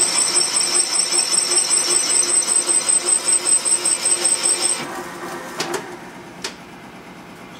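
Valve-seat cutter spinning and cutting metal as it takes an inside 70-degree cut on a newly installed hardened exhaust valve seat. It makes a high whine that pulses several times a second and stops about five seconds in, followed by two light clicks.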